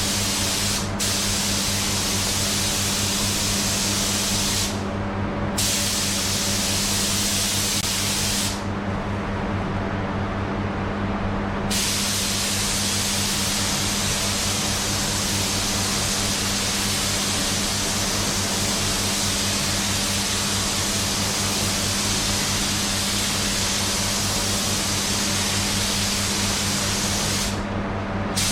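Paint spray gun hissing as clear coat is sprayed, in long passes broken by short pauses where the trigger is let off, the longest lasting about three seconds. A steady low hum runs underneath.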